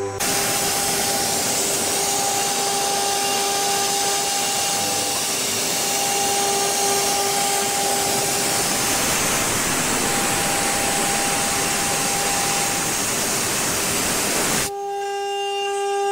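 High-speed carving spindle of a CNC wood lathe running with a steady high whine while its bit cuts a scroll pattern into a turned wooden post. A loud hiss of cutting goes with it and cuts off suddenly near the end, leaving the spindle's whine.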